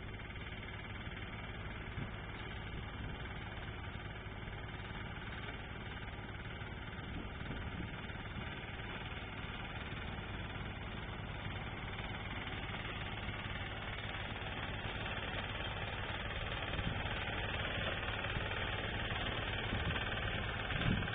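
Engine of a wheat-harvesting machine running steadily with a low hum, slowly getting louder over the second half.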